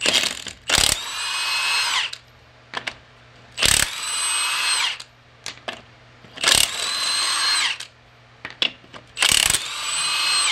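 Milwaukee M18 Fuel 1/2-inch cordless impact wrench with a 5.0 battery running on a wheel's lug nuts in four short runs, each winding down in pitch as it stops. Small clicks come between the runs.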